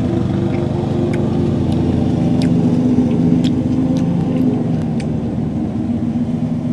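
A motor running steadily nearby: a constant low hum made of several steady tones, with a few faint clicks over it.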